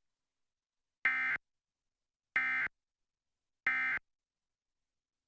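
Emergency Alert System end-of-message (EOM) data tones: three short, identical bursts of digital data tones about a second and a third apart, signalling the end of the Required Monthly Test.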